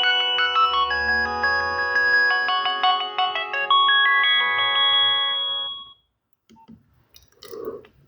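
Nokia 6030 ringtone playing a melody of several notes at once with a bass line through the phone's small loudspeaker, fading out about six seconds in; a few faint clicks follow.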